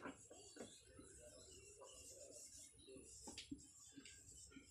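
Near silence, with the faint, irregular scratching of a marker pen writing on a whiteboard and a couple of brief ticks a little past the middle.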